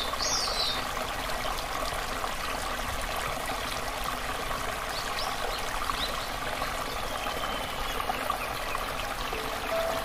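Steady running water of a stream, with a bird chirping briefly near the start.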